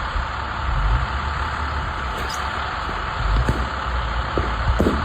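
A vehicle engine running steadily with a low rumble under an even hiss, and a few light knocks near the end.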